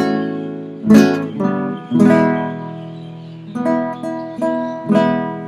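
Acoustic guitar strumming chords, a strum about every second, each left to ring: the A major chord that closes an E major, B major, C sharp minor, A major progression, with a change to another chord about three and a half seconds in.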